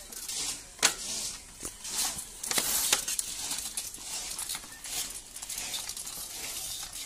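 Scattered light clicks and rattles over a faint high hiss, irregular and spread throughout.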